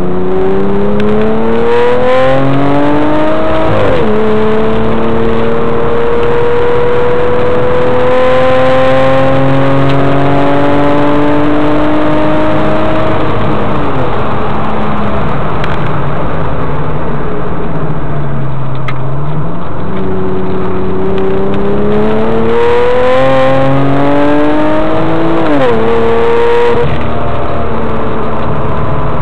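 Twin-turbo flat-six of a Porsche 996 Turbo–based Gemballa GT600 Evo, heard from inside the cabin under hard acceleration on track. The engine note climbs steadily, with sharp drops at gear changes about four seconds in and again near the end. After another drop around the middle, the pitch falls away as the car slows, then climbs again.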